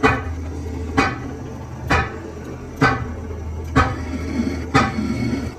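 Metal being struck with a hammer, six evenly spaced ringing blows about one a second, over a steady low machine hum.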